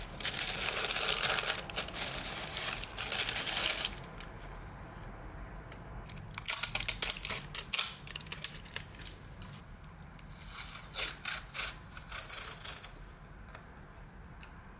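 Tissue and wrapping paper crinkling as it is handled, for about four seconds. After a short pause, washi tape is peeled off its roll in two spells of quick crackling.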